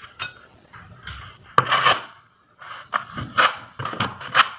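Metal putty knives scraping and spreading white patching compound on a smooth wall, in a series of short rasping strokes, the longest a little before halfway through.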